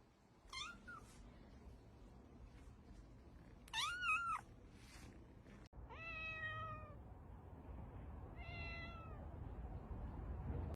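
Cats meowing four times: two high-pitched meows, the second about four seconds in and the loudest, then after a sudden cut two lower, longer meows.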